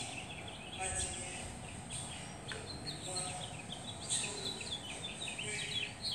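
Birds chirping: a busy run of quick, short, high chirps throughout, over a faint steady high-pitched hiss.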